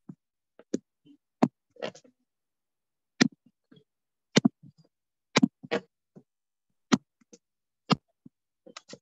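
About a dozen sharp taps and knocks at irregular intervals, each cut off at once with silence between, as heard over a video-call microphone.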